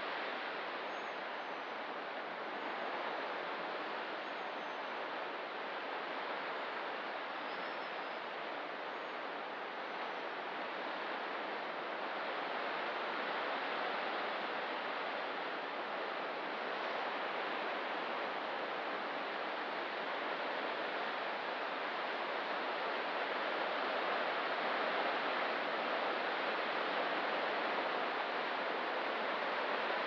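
Ocean surf washing steadily, swelling slowly and growing a little louder after about twenty seconds, with a few faint high bird chirps in the first ten seconds.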